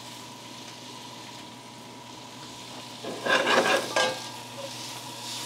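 Chopped chicken, onion and bell pepper sizzling in butter in a skillet. A little past halfway, a spatula scrapes and stirs loudly through the pan for about a second.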